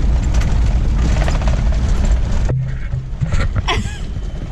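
Low, rough rumble of a car on the move, which cuts off abruptly about two and a half seconds in. A quieter, steady low engine hum follows.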